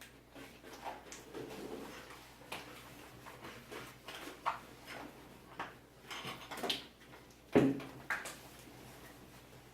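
Scattered short scratches and light taps of a pen or marker drawing on a surface, with one sharper knock about seven and a half seconds in.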